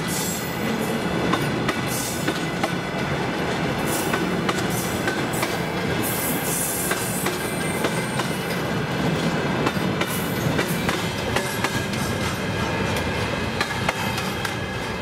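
Freight train's flat wagons rolling past close by: a steady rolling rumble with the clickety-clack of wheels over rail joints, and a brief high hiss about six seconds in.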